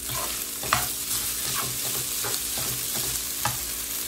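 Fried rice sizzling in hot oil in a wok while a metal slotted spatula stirs and turns it, with several sharp scrapes and knocks of the spatula against the pan, the loudest a little under a second in.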